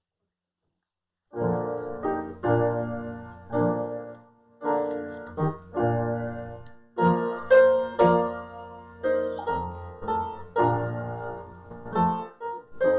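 Piano playing a worship prelude in full chords. It starts after about a second and a half of silence, and each chord is struck and left to fade.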